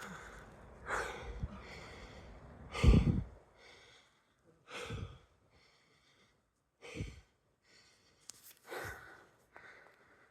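A person breathing heavily close to the microphone, a breath every two seconds or so, the loudest about three seconds in with a low puff as the breath hits the mic.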